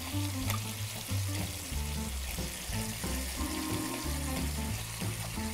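Floured ossobuco slices frying in oil in a pan, a steady sizzle, with background music playing over it.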